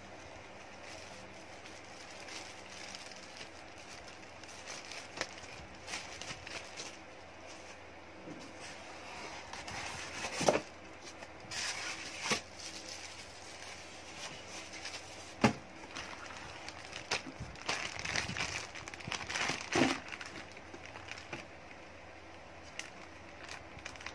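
Packaging being handled: plastic wrap crinkling and styrofoam inserts rubbing against a cardboard box, with scattered clicks. A few sharper knocks stand out, about ten, fifteen and twenty seconds in.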